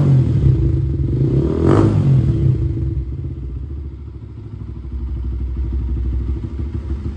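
Yamaha R6 inline-four sport-bike engine idling through its exhaust, revved briefly about two seconds in before settling back to a steady idle.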